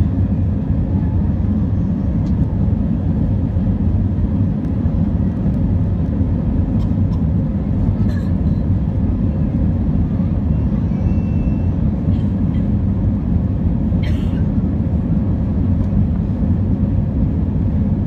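Steady low roar inside a jet airliner's cabin during the climb after takeoff: engine and airflow noise, even and unchanging.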